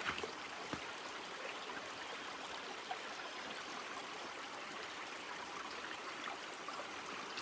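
A small, shallow woodland creek running steadily over rocks and logs.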